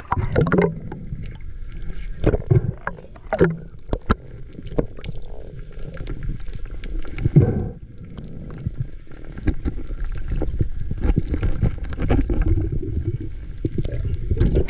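Underwater sound from a camera held below the sea surface: a steady, muffled low rumble of moving water, broken by scattered clicks and knocks.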